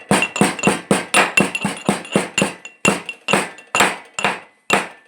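Pestle pounding in a mortar: sharp, ringing clinks about four times a second, with a short pause near the end.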